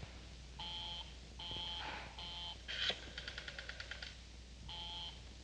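Telephone tones beeping in short repeated bursts, with a quick rattling telephone bell ring about three seconds in.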